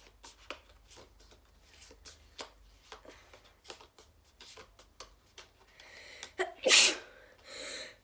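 A person sneezing loudly about seven seconds in, after a short intake of breath. Before that, faint light clicks of trading cards being handled.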